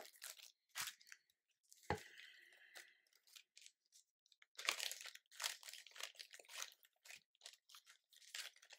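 Clear plastic packet crinkling and rustling as it is handled, in short irregular crackles that are densest in the middle, with a single light knock about two seconds in.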